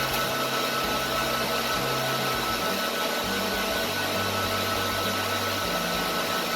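Cooling fans of racked radio and TV transmitter equipment running with a steady, even rushing noise and a few faint steady whines.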